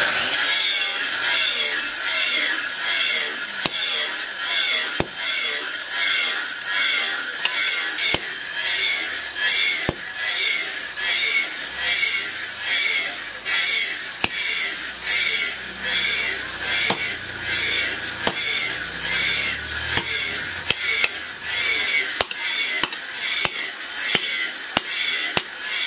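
Steady back-and-forth rasping strokes of a hand tool scraping steel, about one and a half strokes a second, with occasional sharp clicks of metal.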